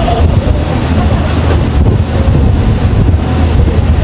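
A passenger ferry's engine running steadily with a low hum while under way, with wind buffeting the microphone.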